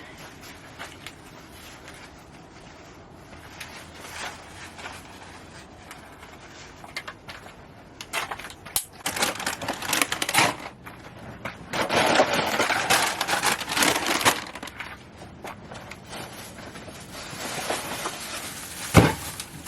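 Intermittent rustling and clattering of things being handled, in three longer spells, with scattered clicks and one sharp knock near the end.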